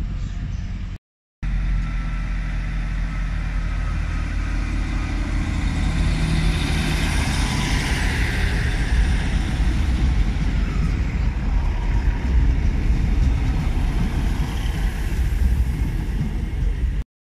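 Diesel multiple unit running along the platform: a low, steady engine rumble with wheel and rail noise, growing louder about halfway through as the train passes close by.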